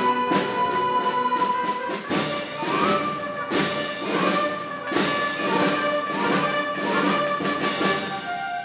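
High school concert band of woodwinds, brass and percussion playing, with sharp accented percussion strokes about every second and a half from about two seconds in, moving to held chords near the end.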